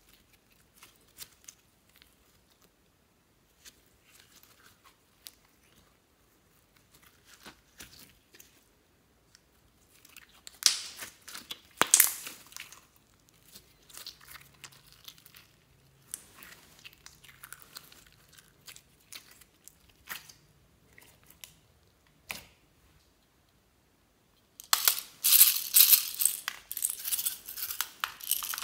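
Clear slime being squeezed and stretched by hand, giving sticky crackles and faint squelching clicks, with a louder spell of crackling about ten seconds in. Near the end comes a loud, dense clatter of hard plastic toy owls knocking against the glass bowl and each other.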